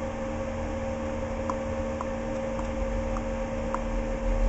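Computer DVD drive spinning at speed while it reads the disc, a steady whirring hum with two held tones, and a few faint ticks in the middle.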